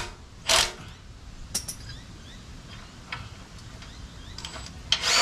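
A few light clicks and handling knocks from a spanner working the last engine mounting bolt, with a short loud rushing noise about half a second in and another starting near the end.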